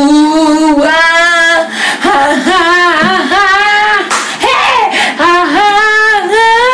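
A woman singing loudly without words, holding long wavering notes that slide up and down. There is a short noisy burst about four seconds in.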